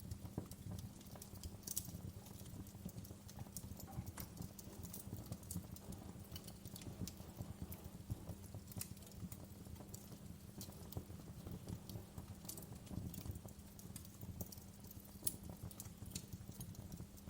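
Wood fire crackling in a fireplace: a dense, irregular run of small snaps and pops from the burning logs, with a few sharper pops standing out, over a low steady hum.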